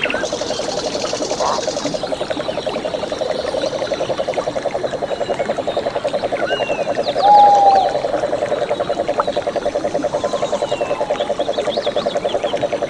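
A chorus of frogs trilling, a fast, even pulsing that carries on without a break. Birds chirp and whistle over it, and one louder short call comes about seven seconds in.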